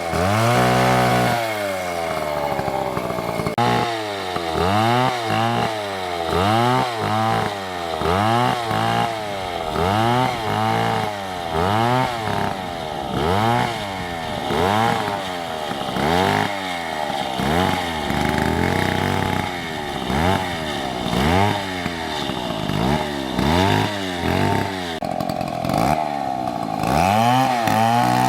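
Two-stroke chainsaw cutting wood, its engine pitch rising and falling about once a second, then running steadier for a couple of seconds near the end.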